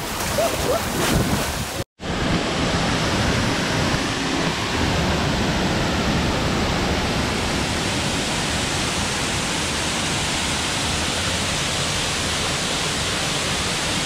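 Water splashing against a 4x4 as it wades through a shallow river, cut off abruptly about two seconds in. Then a waterfall's steady, even rush of falling water.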